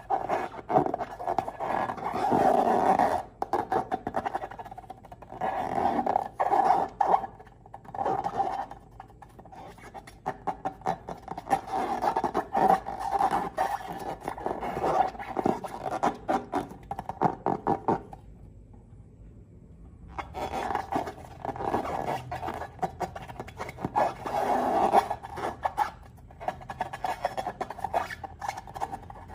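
Slime and rubber balloons being squeezed and worked by hand: a busy run of wet clicks and squelches with a rubbery squeak, stopping for about two seconds about two-thirds of the way through.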